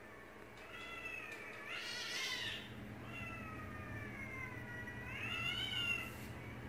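Recorded cat yowls played back through a computer speaker: two long drawn-out meows, the first rising to a peak about two seconds in, the second longer, sliding down in pitch and then up again near the end.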